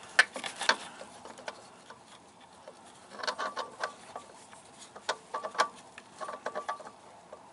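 Scattered light clicks and knocks, in a few short clusters, as a hand handles the new alternator clutch pulley against engine-bay parts while fitting it onto the alternator shaft threads.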